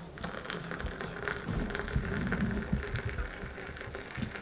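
Hot milk poured in a thin stream from a jug into a mug of frothy whipped coffee: a steady trickling splash of liquid into liquid.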